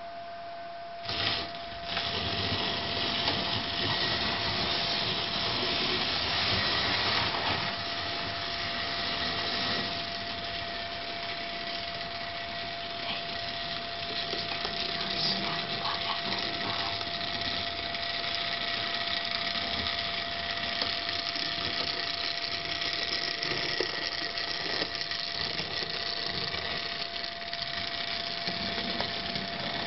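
Hornby model steam locomotive running on its track: a steady mechanical whirr and rattle that starts up about a second in, with a constant high hum beneath it.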